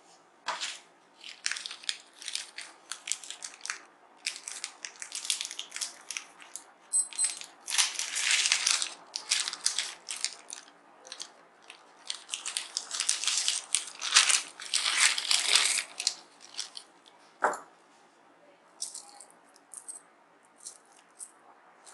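Parts of an electronic keyboard being handled and fitted back together during reassembly: a run of irregular clicks, scrapes and rustles, busiest in two stretches, with one sharper knock near the end.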